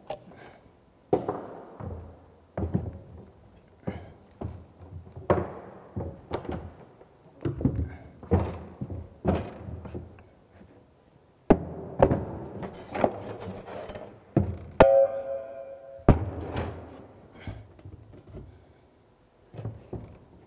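Irregular knocks, thuds and clatter of hand tools and a ceramic wash basin being handled during basin installation. About fifteen seconds in, a sharp click is followed by a pitched ringing that lasts about a second.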